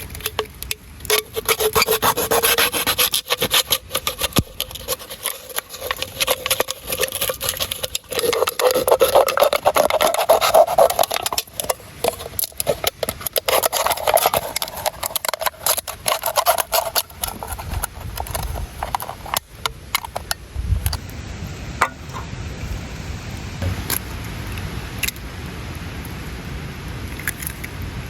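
Rapid rubbing or sawing strokes on wood, fast and continuous, with a squeaky tone that climbs in pitch through the middle. After about twenty seconds the strokes stop, leaving quieter knocks and handling.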